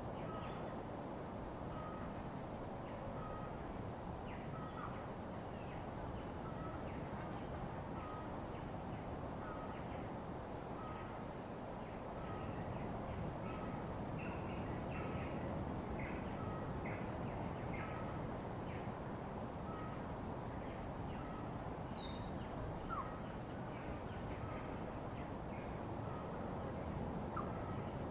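Wild birds calling over a steady background hiss: one short call repeats about once a second, with scattered higher chirps between.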